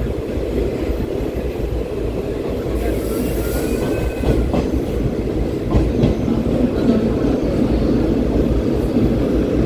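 ICF-rake passenger train running on the rails: a steady low rumble with a few sharp wheel clicks in the middle and a faint brief squeal about four seconds in.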